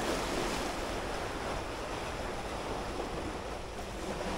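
Sea waves washing against the shore, a steady rushing surf with wind buffeting the microphone.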